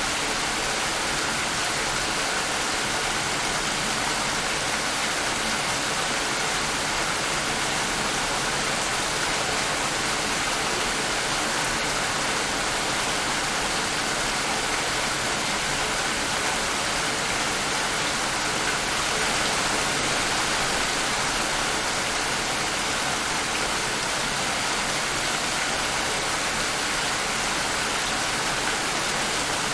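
Steady heavy rain, an even dense hiss of falling water with no distinct drops or thunder.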